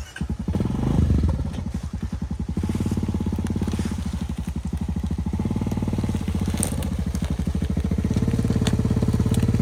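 A vehicle engine starts abruptly, revs briefly about a second in, then runs with a steady, fast throb that slowly grows louder.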